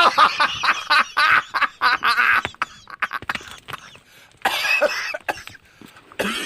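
A person laughing in a run of quick bursts for the first two and a half seconds, with shorter bursts about four and a half seconds in and again near the end.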